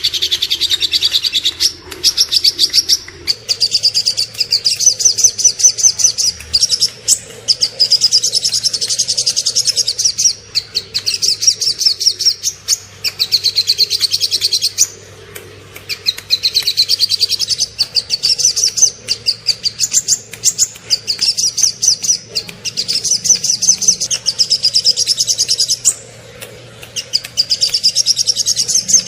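Small songbird singing fast, high-pitched trills in phrases of one to three seconds with short pauses between them: the rapid-fire 'tembakan' song style.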